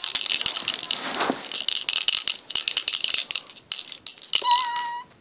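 A plastic toy wand shaken hard close to the microphone, a fast, continuous rattle. Near the end a short steady high tone sounds over it.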